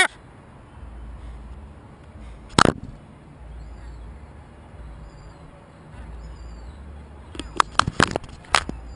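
Sharp knocks on a GoPro camera's housing as a gull pecks at it with its bill: one about two and a half seconds in, then a quick cluster of four or five near the end, over a low rumble of wind on the microphone.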